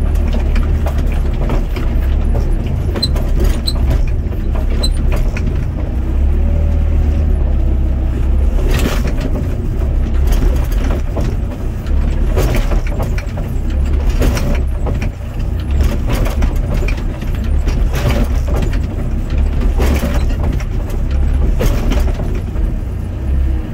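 Doosan DX55 mini excavator's diesel engine running steadily under load, heard from the cab, as the hydraulic boom and bucket work loose soil back into a trench. From about nine seconds in there is a series of sharp knocks, one every second or two.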